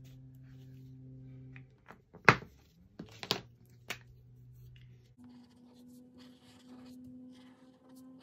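Crayola washable markers being handled on a tabletop: a sharp click about two seconds in, then a few lighter clicks and knocks as one marker is put down and another picked up. After that, faint scratching of a felt-tip marker drawing on paper.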